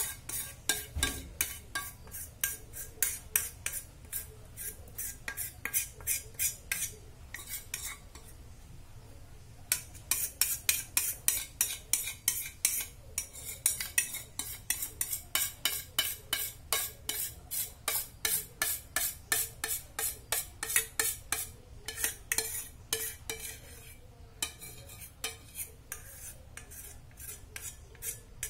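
A metal spoon scraping and knocking against the inside of a stainless-steel mixing bowl, getting the last of the cake batter out, in a long run of quick strokes about two to three a second. The strokes stop for a moment about eight seconds in, then start again.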